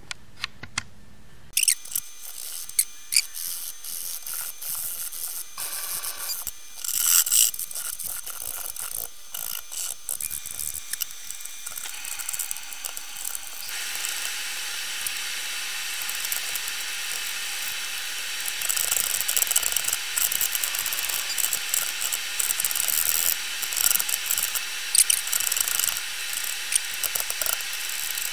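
Hand file scraping across the edges of a mahogany block (a chisel handle being smoothed) in quick, irregular strokes, getting somewhat louder about halfway through.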